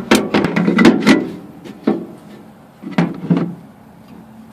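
Irregular knocks and clicks of metal parts and a hand tool being handled while fitting a battery tray: a quick run in the first second or so, a single knock about two seconds in, and a couple more around three seconds.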